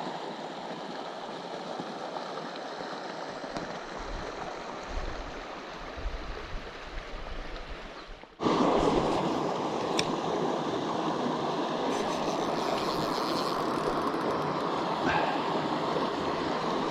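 Creek water running over rocks, a steady rush that jumps suddenly louder and fuller about halfway through.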